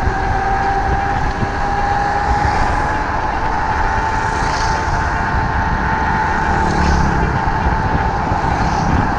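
Electric scooter motor whining steadily while riding, its pitch rising slowly over the first few seconds and then holding, over the rush of wind and road noise on the microphone.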